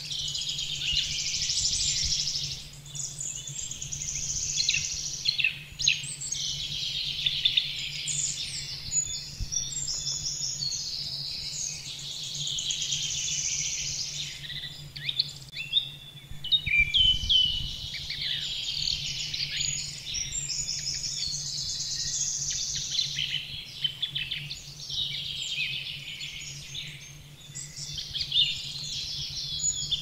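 Pre-dawn woodland chorus of many songbirds singing at once, with high, overlapping phrases and trills that never pause. A faint low, steady hum runs underneath.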